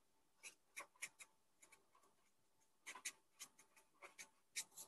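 Staedtler felt-tip pen writing a word in capital letters on paper: short, faint scratches of the pen tip, a few in the first second and a cluster more from about three seconds in.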